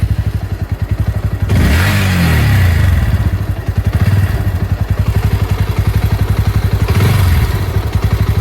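Bajaj Pulsar NS160's single-cylinder engine idling with a fast, throbbing exhaust beat, blipped up about one and a half seconds in and settling back, then revved briefly again near the end.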